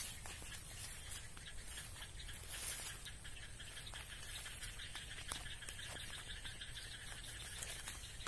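Open rice-paddy ambience: a steady low rumble with a thin high chirring and many faint scattered clicks and ticks.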